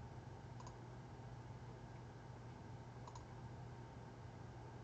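Two faint computer mouse clicks, about half a second in and about three seconds in, over a low steady hum.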